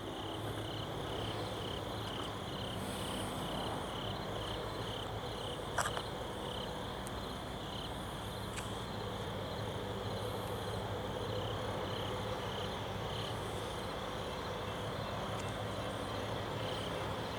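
Insects chirping in a steady high pulsing trill, about two pulses a second, over a low steady hum, with one short click about six seconds in.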